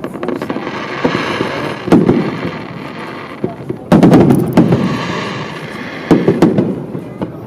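Aerial firework shells bursting: loud bangs about two seconds apart, the loudest about four seconds in, each trailing off in an echoing rumble, with crackling between them.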